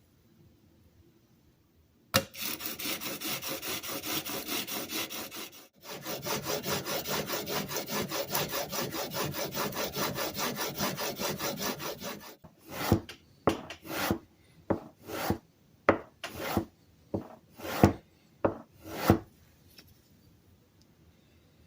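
Steel plane iron being lapped on sandpaper, a rasping scrape. It starts about two seconds in with two runs of quick, even back-and-forth strokes, then slows to about ten separate, longer strokes before stopping.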